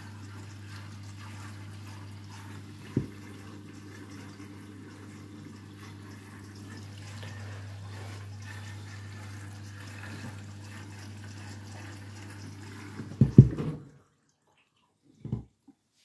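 Candy front-loading washing machine filling with water for its rinse, water running in with a steady low hum. There is a single knock about three seconds in and a louder burst near the end, then the sound cuts off suddenly.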